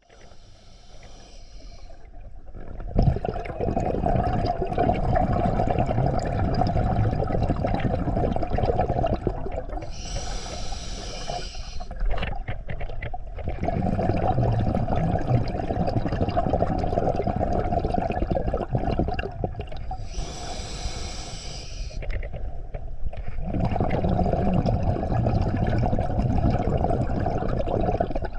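Scuba diver breathing through a regulator underwater. A short hiss of inhalation is followed each time by a long rush of exhaled bubbles, in a slow cycle of about ten seconds.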